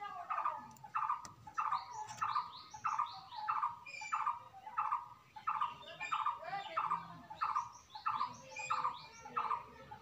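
A bird calling over and over in a steady rhythm, about three calls every two seconds, each a short note falling in pitch.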